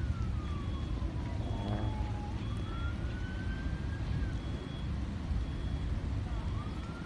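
A siren wailing, its pitch sliding slowly down and then back up, twice over, above a steady low rumble.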